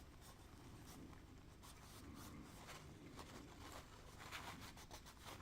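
Faint rubbing with light scratchy ticks: grease being wiped off a lens part by hand.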